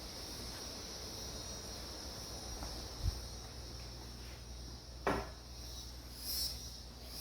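Insects chirring steadily in a high, even drone. A low thump comes about three seconds in, and a sharp knock about five seconds in.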